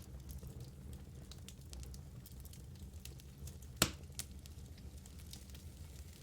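Wood fire burning in a fireplace: a steady low rumble of flames with scattered small crackles, and one loud pop about four seconds in followed by a smaller one.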